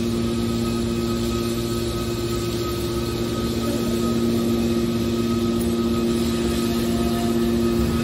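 TCM hydraulic metal scrap baler running, its power unit giving a steady hum of two low tones with a fainter higher whine; a lower rumble underneath drops away about halfway through.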